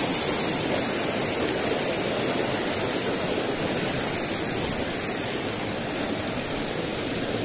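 Rocky mountain stream rushing over boulders and small cascades, a steady, even rush of water.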